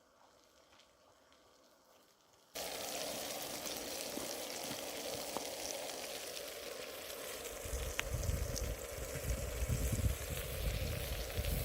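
Quiet at first, then a sudden switch to food sizzling in a frying pan, a steady hiss with small pops. From about eight seconds in, gusts of wind rumble on the microphone.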